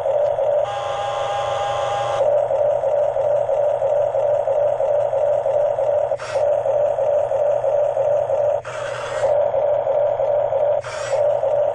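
Radio-controlled model bulldozer running: a steady electric-motor and gearbox whine, broken by a few short, harsher bursts of noise about six, nine and eleven seconds in.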